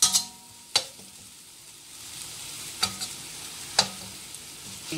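Chili spice paste frying and sizzling in a stainless steel wok as a metal spoon stirs it, with four sharp clinks of the spoon against the wok. The sizzle grows a little louder about halfway through.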